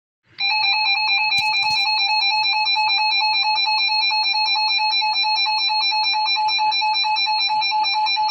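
Emergency Alert System attention signal: a loud, steady, high-pitched alert tone with a fast flutter, starting about half a second in, announcing a tornado warning.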